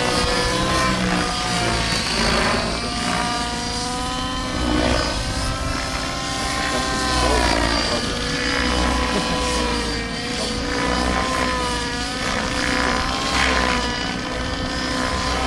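90-class T-Rex radio-controlled helicopter in flight, its motor and rotor whine sweeping up and down in pitch again and again as it manoeuvres.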